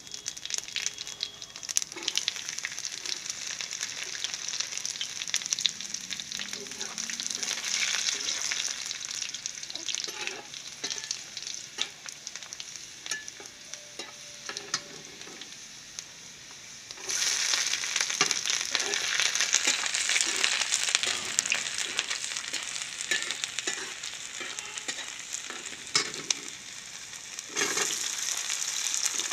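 Hot oil sizzling and crackling in a metal kadai while a flat metal spatula stirs and scrapes through it. The sizzle grows louder about halfway through and flares up again near the end as chopped onions drop into the oil.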